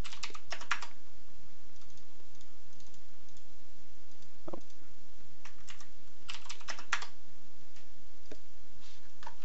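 Computer keyboard typing: a quick run of keystrokes at the start and another about six to seven seconds in, with a few single key taps between.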